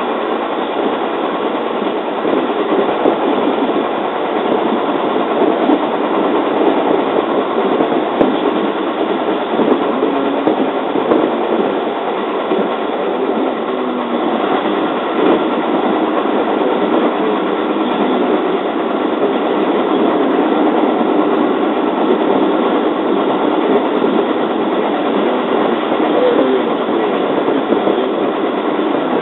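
Running noise of a JR 205 series electric train, heard from inside the carriage as it travels at speed between stations. A steady, unbroken rumble of the wheels on the rails.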